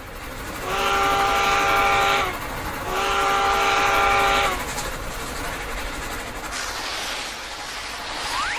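Cartoon sound effect of a steam locomotive whistle: two blasts of about a second and a half each, over a steady rushing hiss that carries on after them. It stands in for a skater speeding across the ice. Near the end a rising whistle glide begins.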